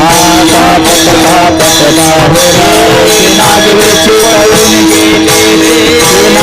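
Kirtan singing: voices sing a devotional verse over a held drone note, with a steady rhythm of jingling hand-percussion strikes.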